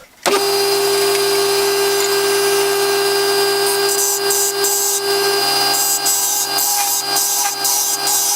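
Wood lathe switched on, its motor starting abruptly and running with a steady hum. From about four seconds in, a turning tool cuts the small wooden knob in short, repeated hissing stretches.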